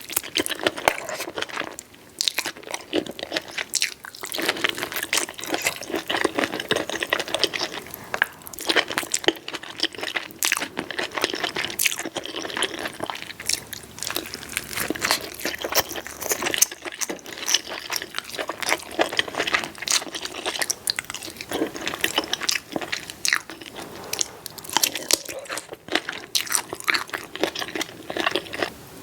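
Close-miked eating sounds: a person biting and chewing food with a run of irregular crunchy and wet mouth clicks and smacks.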